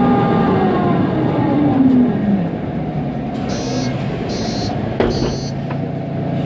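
Mercedes-Benz Conecto NGT city bus, heard from inside, with its OM 936 G CNG engine and ZF automatic drivetrain falling in pitch as the bus slows, then settling to a steady drone. Three short high electronic beeps sound in the middle, with a click at about five seconds.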